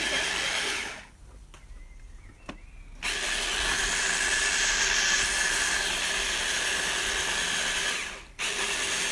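Electric mini chopper's motor whirring steadily as it purées a creamy cilantro-lime sauce, run in pulses: it stops for about two seconds about a second in, runs again for about five seconds, cuts out briefly near the end and starts again.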